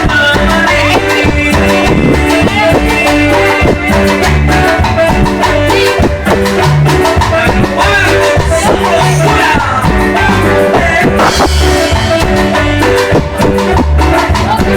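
Latin dance music played on an electronic keyboard, with a steady bass line and percussion beat.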